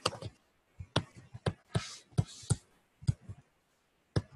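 Irregular light clicks and brief scratches of a stylus tip on a tablet screen as a word is handwritten, about a dozen taps in all.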